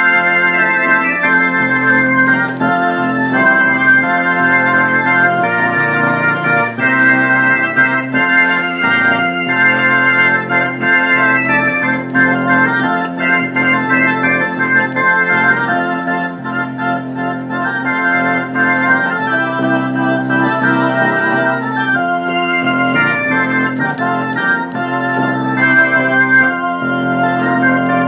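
Theatre organ playing a Christmas carol on two manuals: held chords over a sustained low note, with the upper notes changing in steps.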